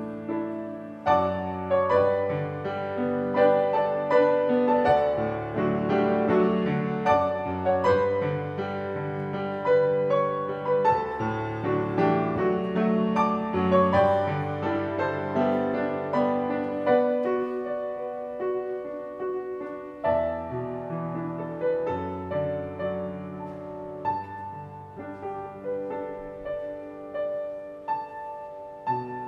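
Grand piano played solo: a slow hymn arrangement of held chords under a melody, growing softer about halfway through.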